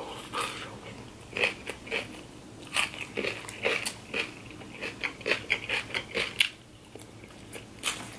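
Close-miked crunchy chewing of a mouthful of chopped salad: irregular crisp crunches, a few each second, easing off briefly near the end.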